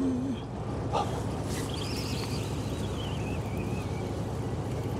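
Fishing boat's engine running with a steady low rumble. There is a sharp click about a second in, and a faint, wavering high whistle drifts downward over a couple of seconds.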